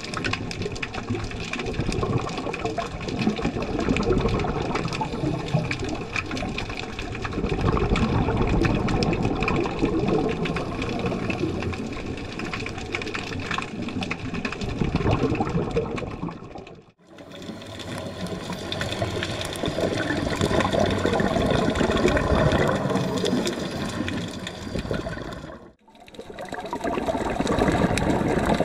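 Rushing, bubbling water heard through an underwater camera, swelling and easing every few seconds like a scuba diver's exhaled bubbles. It is broken by two abrupt cuts, about 17 and 26 seconds in.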